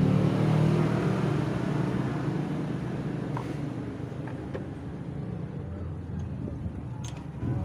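A motor engine running with a steady low drone that is loudest at the start and slowly eases off, with a few light clicks in the second half.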